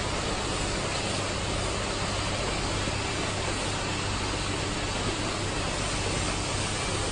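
Vegetable weighing and packing line running: a steady mechanical hum under an even hiss from the vibratory feeder and Z-type bucket elevator carrying chopped cabbage.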